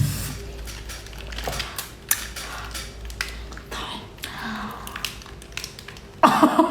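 Close-up eating sounds from a mouthful of prawns being chewed: irregular wet clicks and crunches. A louder muffled burst comes about six seconds in.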